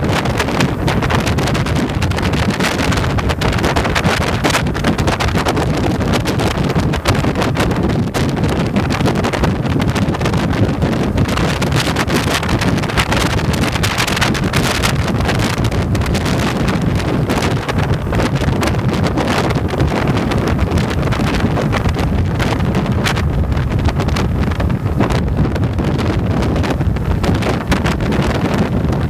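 Wind buffeting the microphone of a motorcycle riding at highway speed, a steady loud rush with the bike's engine and road noise underneath.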